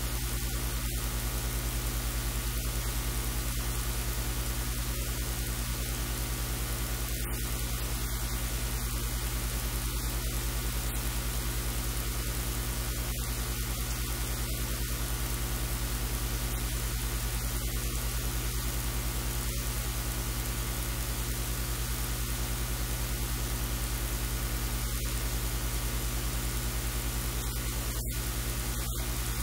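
A steady, even hiss with a constant low electrical hum under it: recording noise that does not change through the whole stretch.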